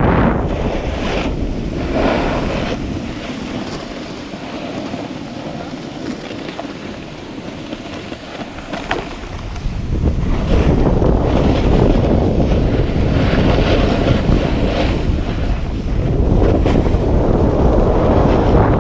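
Wind buffeting a GoPro's microphone during a snowboard run, with the hiss and scrape of the board sliding over packed snow. It eases for a few seconds and grows louder again about halfway through.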